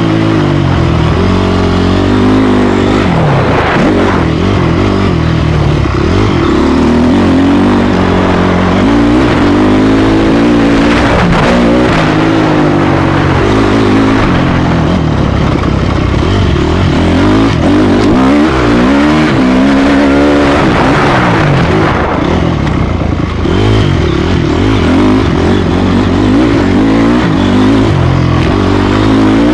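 Honda CRF four-stroke single-cylinder motocross bike engine revving hard, heard from on the bike. Its pitch keeps climbing and dropping back as the throttle opens and closes around the track.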